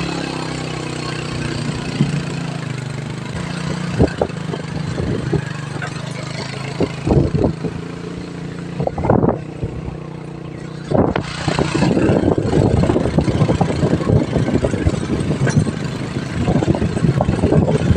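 Motorcycle engine running steadily while riding along a rough road, with a few sharp knocks along the way. From about two-thirds through, a rougher rumbling noise joins the engine.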